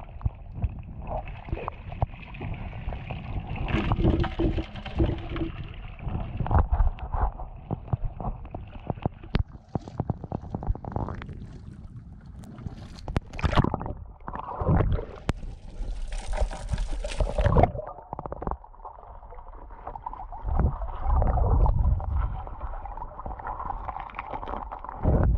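River water sloshing and gurgling around a camera dipping in and out of the surface, with muffled underwater rumbles and scattered knocks. A brief, higher rushing sound comes about two-thirds of the way through.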